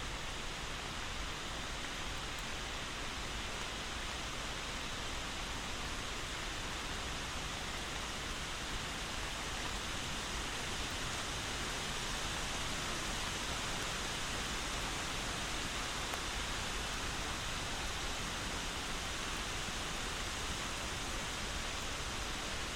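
Steady rain falling, an even hiss with no separate drops or changes.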